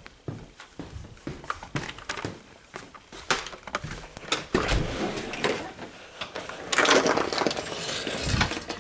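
Footsteps and handling clatter: a string of irregular clicks and knocks, with a louder rushing noise for about a second near the end.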